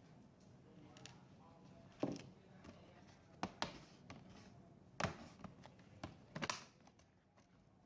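Scattered sharp clicks and knocks of a laptop and its parts being handled during disassembly: about six taps, two of them close together.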